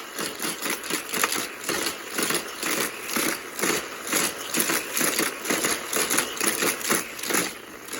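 Hot Wheels toy cars running around a plastic track and through its battery-powered booster, making a rhythmic plastic clatter of about two to three clacks a second.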